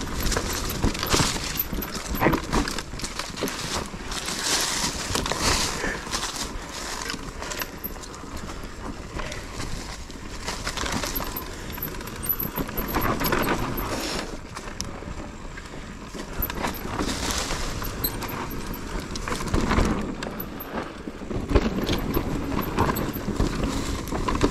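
Mountain bike riding a rough trail: tyres on dirt and stones, with the bike rattling and clattering over the bumps. Wind rumbles on the microphone.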